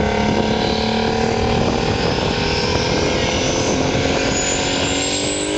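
Big rig semi tractor's diesel engine running hard under heavy load, pulling a weight-transfer sled. The engine note climbs slowly in pitch, with a high whine rising near the end.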